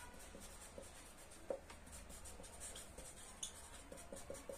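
Faint, short strokes of a marker pen writing a word on a whiteboard.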